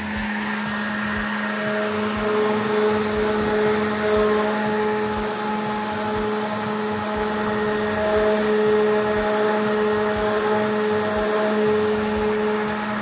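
Electric random orbital sander running steadily against a car bonnet, sanding back the paint: a constant motor hum with a few higher tones that waver as the sander is moved over the panel.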